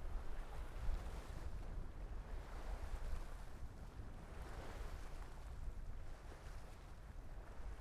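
Wind buffeting the microphone as a steady low rumble, coming through even with a fur windscreen. Under it, sea water washes against the harbour breakwater, swelling twice.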